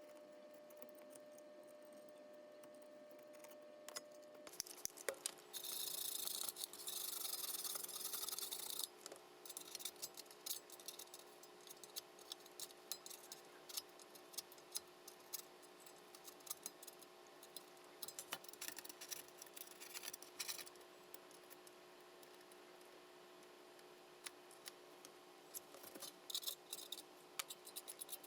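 Faint clicks and scraping of small hand tools working on a laptop's aluminium top case, with a few seconds of steady scratchy rubbing about six seconds in.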